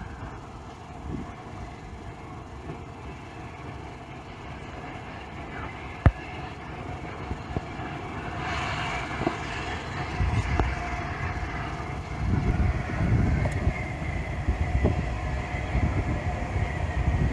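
Steam locomotive approaching with its train, its exhaust beats and steam hiss growing steadily louder from about eight seconds in. A single sharp knock sounds about six seconds in.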